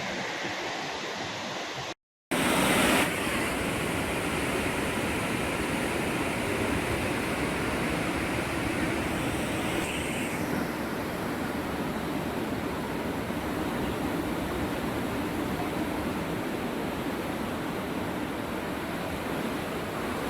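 Steady rushing of floodwater from a river in flash flood, broken by a brief cut to silence about two seconds in.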